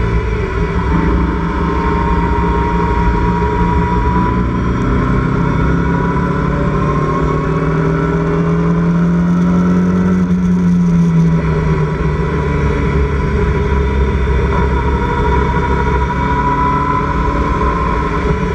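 Locost club racing car's engine running hard under acceleration, heard from the open cockpit. Its pitch climbs slowly for about ten seconds, then drops about eleven seconds in and starts climbing again, over steady wind and wet-road noise.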